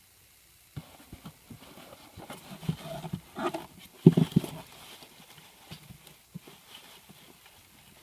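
Hands handling a styrofoam box and a bamboo stick: irregular knocks, scrapes and short foam squeaks. They start about a second in and are loudest a little after the middle.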